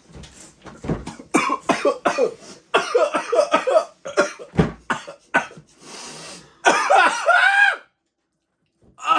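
A person coughing and sputtering in a string of short, hard coughs, then one longer strained voiced cough-groan near the end: spicy jalapeño limeade gone down the wrong pipe.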